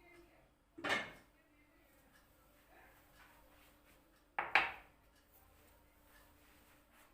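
Kitchenware being handled: two short clinks or knocks, about a second in and again about four and a half seconds in, over a faint steady hum.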